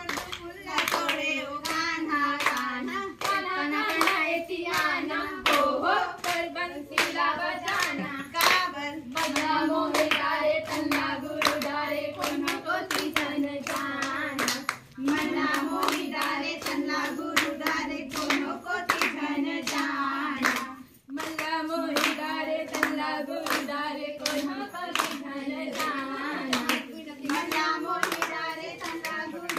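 A group of women singing a Chhattisgarhi sua song while clapping their hands together on a steady beat to keep time for the sua dance. The singing and clapping break off briefly twice, about halfway and two-thirds through.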